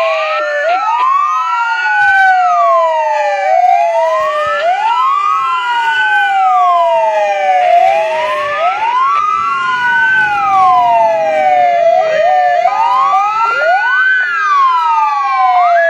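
Several fire truck sirens wailing together, each rising and falling slowly in pitch every few seconds and out of step with one another. They are sounded in unison as a signal marking the moment of the Independence Proclamation.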